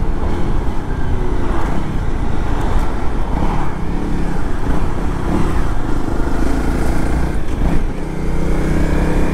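Honda CRF Rally dual-sport motorcycle's single-cylinder engine running steadily while under way, with road and wind rush.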